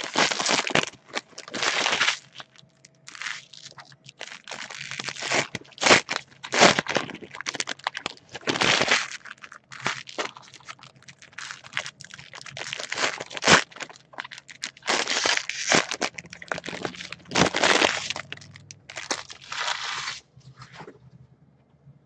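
Baseball card pack wrappers being torn open and crinkled by hand, a long run of irregular crackling rustles as the cards are pulled out.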